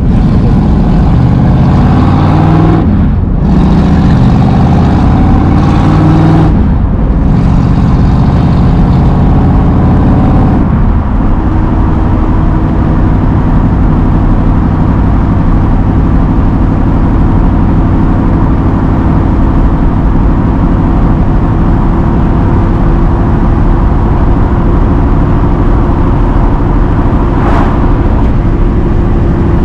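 Carbureted 1965 Ford Mustang Fastback engine heard from inside the cabin, accelerating with its pitch climbing and dropping back three times as it shifts up through the gears. After that it runs at a steady cruise.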